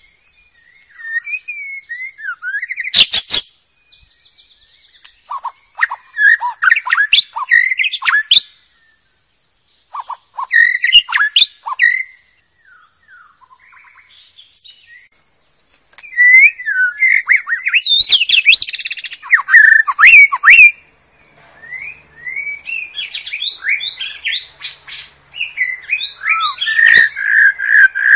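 White-rumped shama singing: loud, varied phrases of quick whistled notes, glides and sharp clicks, separated by short pauses.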